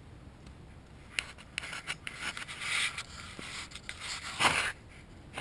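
Rubbing and scraping strokes mixed with a few sharp clicks, starting about a second in, with the longest and loudest scrape near the end.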